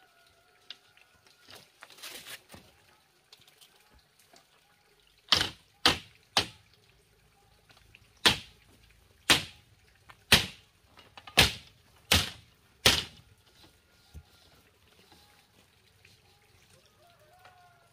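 A tool striking bamboo while a bamboo garden fence is put up: about nine sharp knocks at uneven intervals, starting about five seconds in and stopping a little before the two-thirds mark, with softer scraping and rustling before them.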